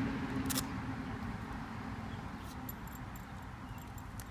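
Quiet handling sounds of a dog's ThunderShirt being fitted: one sharp click about half a second in, then a few faint light ticks. Underneath is a low outdoor rumble and a steady low hum that fades out about halfway through.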